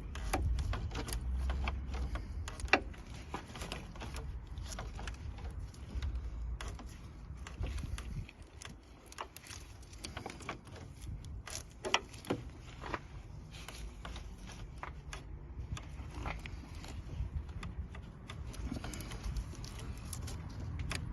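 Irregular clicks and knocks of metal tools and parts being handled while working on a car's oil filter housing, a few sharper knocks standing out, over a low rumble.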